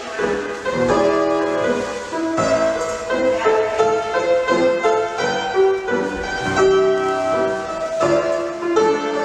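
Piano music playing a melody over changing chords, as ballet barre class accompaniment.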